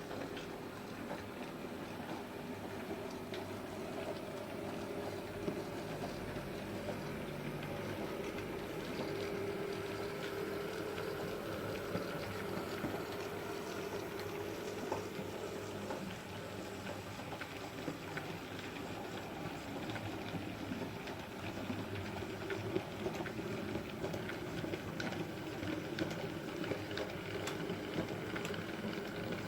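OO-scale model train running on the layout's track: a steady whirring of motor and wheels, with scattered small clicks.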